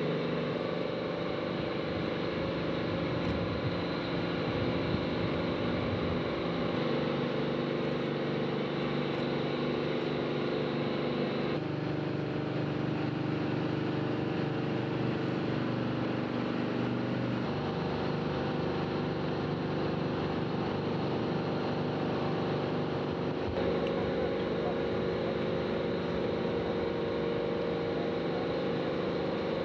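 Steady mechanical hum of heavy machinery as the Soyuz-FG rocket is raised upright on its transporter-erector at the pad. The hum carries several steady tones whose pitch shifts abruptly a few times.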